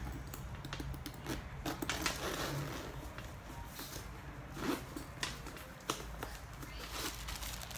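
White packing paper rustling and crinkling as it is pulled out of a leather handbag, with scattered light clicks and taps from handling the bag. The rustling is densest about two seconds in.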